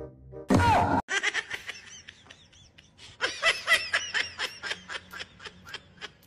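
A person laughing hard in a rapid run of 'ha-ha' bursts, after a short loud cry with a falling pitch about half a second in.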